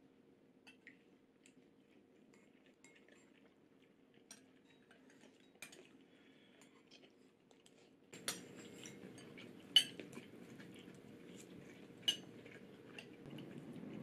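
Eating utensils tapping against bowls: a wooden spoon scooping from a ceramic rice bowl. Faint small clicks at first, then three sharper clinks in the second half.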